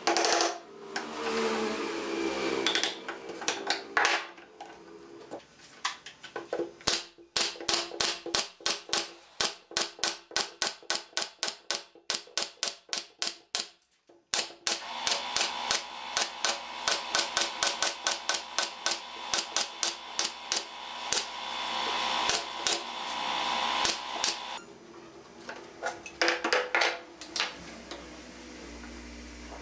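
A few wooden mallet knocks on pine pallet slats, then a pneumatic brad nailer firing in quick succession, about three shots a second, with a hiss of air running under the later shots. A few more wooden knocks come near the end.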